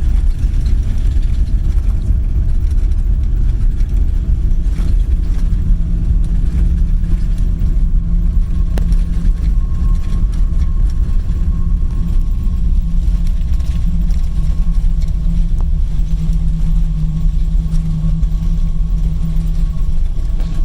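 Boeing 777 cabin noise on the ground after landing: a steady low rumble from the engines and the aircraft rolling, with steady whining tones over it.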